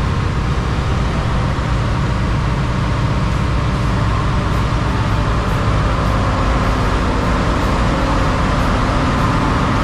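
Ship's engine room machinery running: a loud, steady drone with a constant low hum, heard from the stairwell leading down into the engine room.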